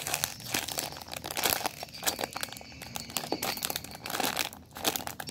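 Clear plastic bag crinkling in irregular crackles as a hand squeezes and turns the bagged squishy toy inside it.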